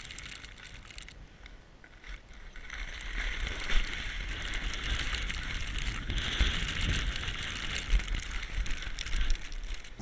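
Blizzard wind buffeting the camera microphone as a gusty low rumble, with a steady hiss that grows louder about three seconds in.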